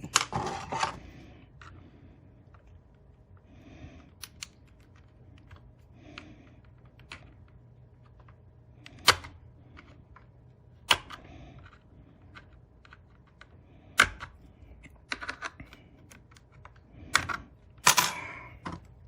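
Plastic clicks and snaps from a Seagate Backup Plus drive enclosure's case being pried apart at its internal clips. A few single sharp snaps are spread through, with a flurry of clicks near the end.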